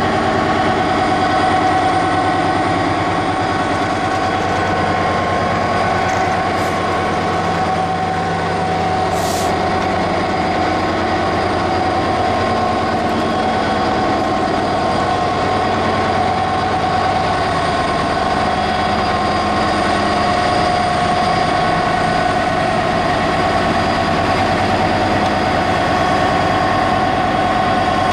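A GB Railfreight Class 66 diesel freight locomotive, with its EMD two-stroke V12, passes close by hauling a long train of hopper wagons. The wagons' wheels rumble steadily along the rails, with steady high-pitched tones over the rumble.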